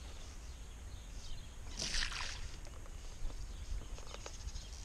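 Canoe drifting on a lake: a low steady rumble with faint water sounds around the hull and a few faint ticks, and one short hissing swish about two seconds in.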